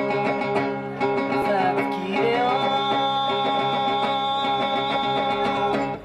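Live acoustic band music: acoustic guitar and plucked strings under a melody line that slides up about two seconds in to a long held note, which breaks off at the end.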